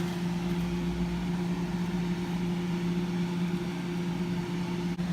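Steady electric hum of a kitchen appliance motor or fan running, one low even drone with no change.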